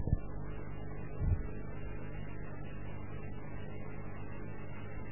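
Steady electrical mains hum, a low buzzing drone, with a soft thump at the start and another about a second in.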